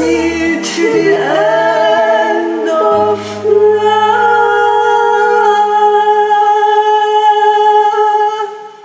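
Women's voices singing a karaoke duet over a soft backing track, ending on one long held note that fades out near the end.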